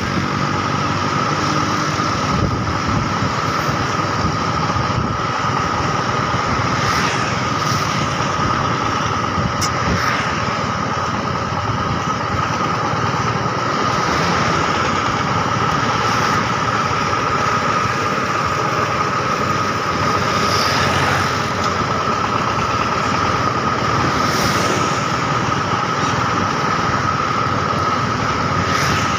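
Vehicle engine running steadily on the move, with road and wind noise and a constant high whine.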